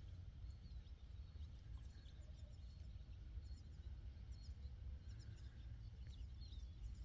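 Quiet rural ambience: small birds chirping faintly and often, over a low steady background rumble.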